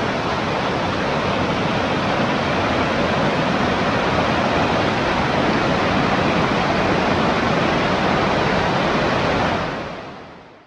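River water rushing white over flat rock ledges and small cascades, a steady full rushing that fades out near the end.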